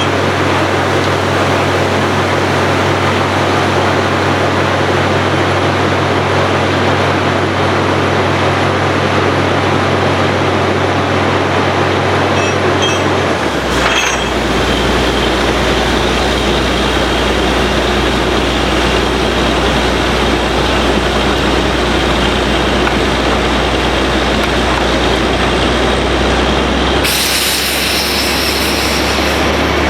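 Bore well drilling machine running continuously, a loud steady mechanical noise over a low hum. The hum drops to a lower pitch about halfway through.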